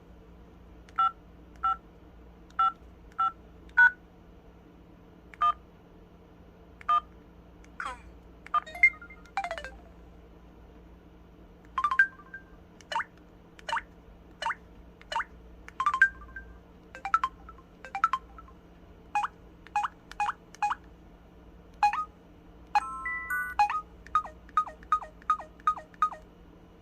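Samsung SPH-W8350 flip phone's built-in sound effects: a string of short electronic beeps and blips at irregular intervals, a few with gliding pitch and one brief multi-tone chime near the end.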